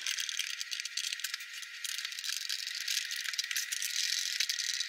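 Screwdriver backing Phillips screws out of a Davis Vantage Vue weather station's plastic housing: a dense run of small, quick clicks and rattles.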